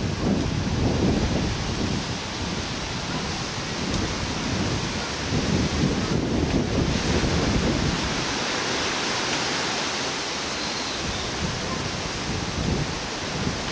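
Wind buffeting the microphone: a steady rushing noise with an uneven low rumble that eases briefly about two-thirds of the way through.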